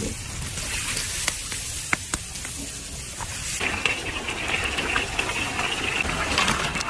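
Food sizzling in hot oil in a pan, with a few small clicks of stirring. About three and a half seconds in the sizzle turns fuller and louder.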